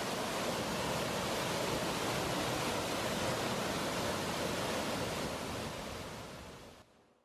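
Waterfall rushing steadily, fading out near the end.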